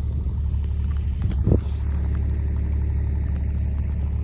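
Steady low rumble of a running vehicle, with one brief thump about one and a half seconds in.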